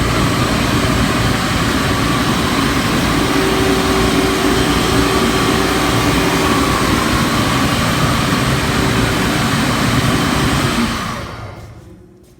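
Kaeser SK-25 20 hp rotary screw air compressor running steadily and loudly, a dense hum with several steady tones over a broad rush of air. The sound dies away about eleven seconds in.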